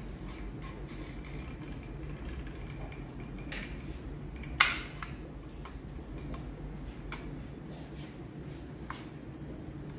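Caulking gun being loaded with a silicone sealant cartridge: scattered light clicks and clacks of the plunger rod and frame, with one sharp click about four and a half seconds in, over a steady low room hum.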